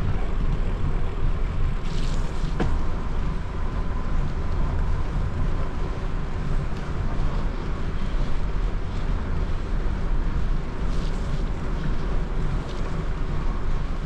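Wind rushing on the microphone of a moving bicycle, over a steady low rumble from the ride. A single sharp click comes about two and a half seconds in, and short hisses come near two and eleven seconds.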